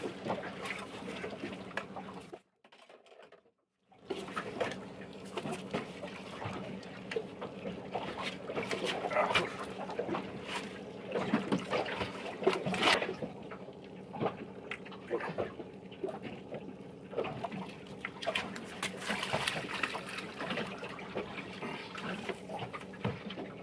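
Water splashing and trickling close by, a dense patter of small splashes and drips over a faint steady low hum, nearly cutting out for a moment about two seconds in.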